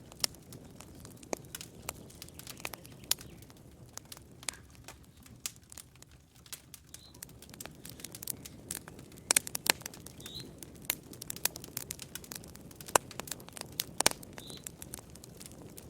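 Campfire burning, the wood crackling and popping in sharp, irregular snaps over a low steady rush of flame. The pops grow busier and louder about halfway through.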